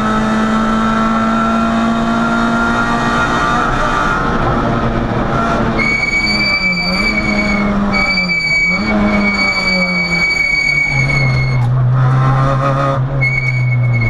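Peugeot 106 rally car engine at high revs, heard from inside the cockpit, pulling hard with a couple of brief dips in revs, then settling lower about eleven seconds in. From about six seconds in, a steady high-pitched tone sounds over it, cutting in and out several times.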